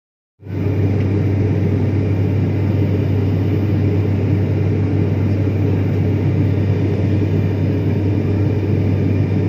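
Turboprop airliner engine and propeller drone heard inside the cabin in cruise flight: a loud, steady rumble with a strong low hum. It cuts in abruptly about half a second in.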